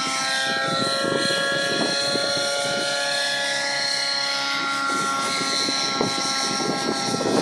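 Radio-controlled model helicopter's nitro (glow-fuel) engine and rotor running at a steady, even pitch while it hovers low.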